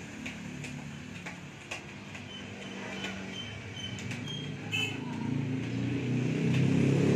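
A motor vehicle's engine running, growing louder in the last couple of seconds as it comes closer, with a few light clicks and short high chirps over it in the middle.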